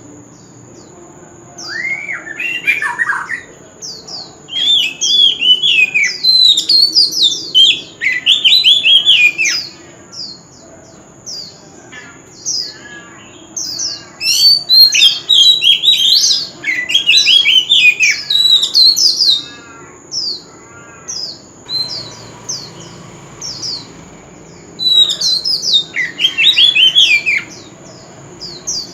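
Male oriental magpie-robin singing in bursts of quick, varied whistles and harsh chattering notes, with pauses of a second or two between phrases.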